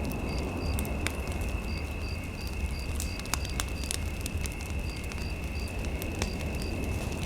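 Fireplace fire crackling with scattered sharp pops over a low rumble, mixed with a steady high electronic hum and short high beeps repeating in runs of about three a second.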